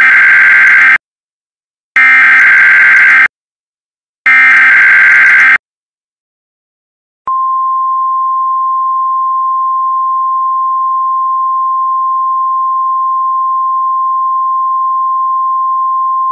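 Emergency Alert System broadcast: three loud, harsh data-header bursts of about a second each, then after a short pause a long steady single-pitched attention tone starting about seven seconds in. Together they announce a severe thunderstorm warning.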